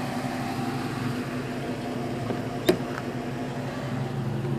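Ford Expedition SUV idling: a steady, even engine hum. A single sharp click sounds about two and a half seconds in.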